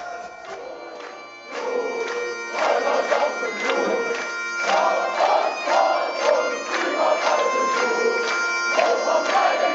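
Folk-metal band playing live, with a bagpipe carrying the melody over drums and guitars. The band comes in fuller and louder about a second and a half in.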